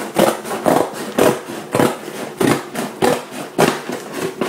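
Scissors snipping through the end of a package, one cut about every half second.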